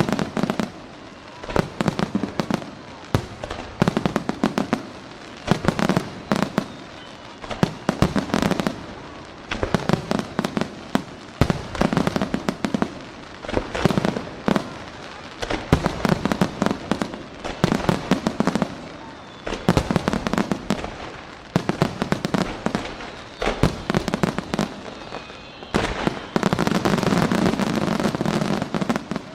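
Aerial fireworks shells bursting in rapid volleys, with clusters of sharp bangs and crackle every second or two. About three seconds before the end they merge into a dense, continuous barrage that stops suddenly: the climax of the fireworks finale.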